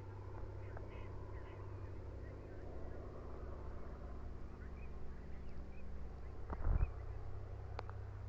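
Steady low hum, with faint distant bird chirps over it and a low thump about seven seconds in.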